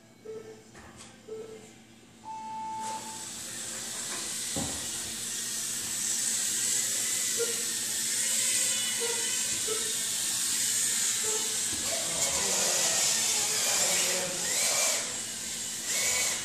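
Race timer sounds a start sequence: short beeps about a second apart, then a longer, higher tone. Several micro FPV quadcopters (tiny whoops) then take off, and their small motors and propellers make a high-pitched buzzing whine that grows louder, with a few more short timer beeps partway through.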